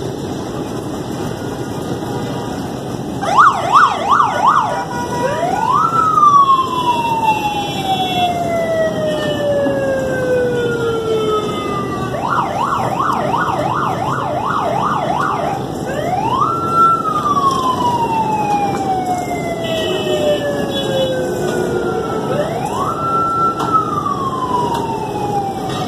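Electronic emergency-vehicle siren cycling between fast yelping sweeps and a long wail that rises, holds and then slowly falls. The yelps come about three seconds in and again about twelve seconds in, with a wail after each and a third wail near the end, over steady street noise.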